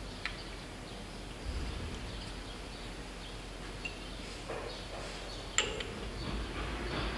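A few sharp metallic clicks and light scraping of a steel pick working at a stuck snap ring in the pin bore of a hydraulic cylinder eye, the loudest click about five and a half seconds in.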